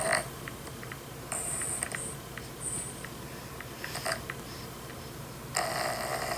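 A person snoring in uneven breaths: a fainter snore about a second and a half in, a quiet stretch with faint small clicks, then a loud snore starting near the end.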